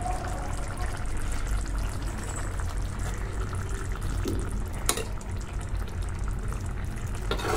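Tomato-onion masala gravy simmering and bubbling in a pan, with a steady low hum underneath. There is a single sharp knock about five seconds in.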